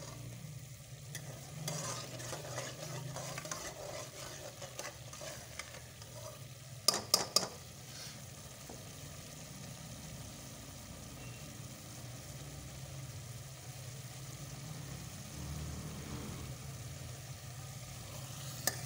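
Pumpkin curry sizzling and bubbling in an open aluminium pressure-cooker pot while a steel ladle stirs and scrapes through it. About seven seconds in come three quick, sharp knocks.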